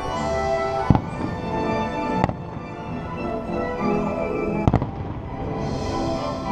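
Aerial firework shells bursting: a sharp bang about a second in, another just after two seconds, and a quick double crack near five seconds. Under them runs the fireworks show's music soundtrack.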